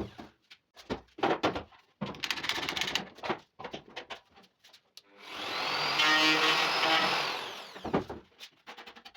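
Edge-trimming router for 1 mm edge banding: short knocks and rustles of handling, then the motor spins up with a high whine about five seconds in, runs for about two seconds and winds down after it is switched off.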